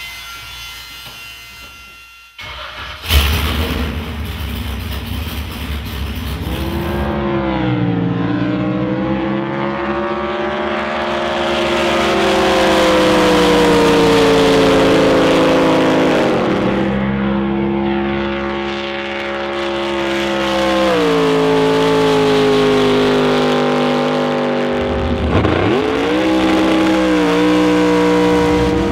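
A drag boat's 1,164-horsepower racing engine, running hard at high revs. It comes in suddenly and loudly about three seconds in, after a quieter opening, and its pitch swings up and down with the throttle, dipping sharply near the end before climbing again.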